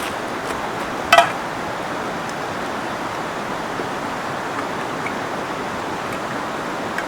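Steady rushing of flowing river water. A short sharp clink or chirp stands out once, about a second in.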